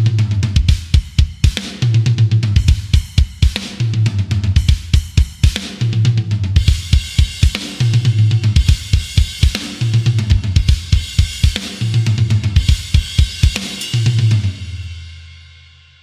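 Metal drum groove from the EZdrummer 3 Modern Metal EZX sampled kits: fast kick drum strokes under snare and hi-hat, with steady low sustained notes in the low end. Crash cymbals fill in about six seconds in, and it ends on a final hit that rings out and fades away.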